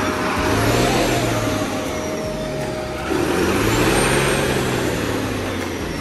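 Truck engine revving hard in two surges as it labours up a muddy slope, straining and unable to climb.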